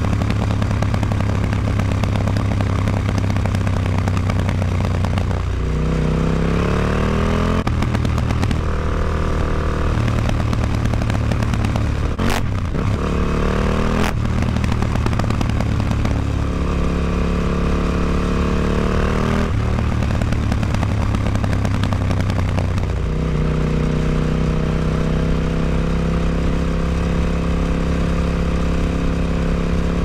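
KTM 950 Adventure's V-twin engine running through an Akrapovic exhaust with its dB killer fitted, loud throughout. It pulls up through the revs again and again, the pitch climbing and then dropping back about five times, with a sharp click about twelve seconds in and again two seconds later.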